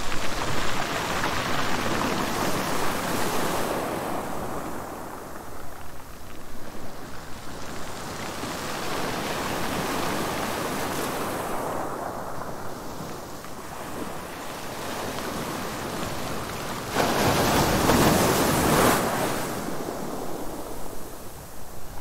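Ocean waves washing in: a rushing noise that swells and eases in slow surges several seconds apart, the strongest about three-quarters of the way through.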